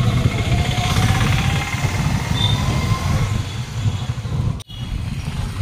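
A heavy engine running with a low, steady rumble and a faint rising whine over the first few seconds, amid street noise. The sound breaks off for an instant near the end.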